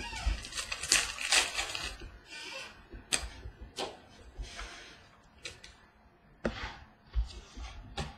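Trading cards being handled on a table: irregular short rustles, flicks and taps as cards are slid, sorted and set down.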